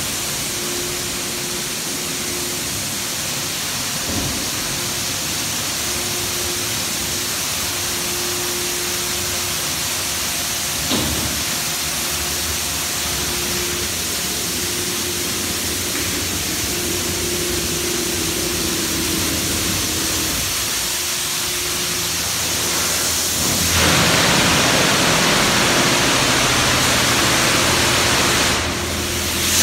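D&S Super 5000 in-bay automatic car wash spraying water over a car: a steady rushing hiss of spray with a faint hum under it. About 24 seconds in, the spray gets louder and fuller, dips briefly near the end, then comes back.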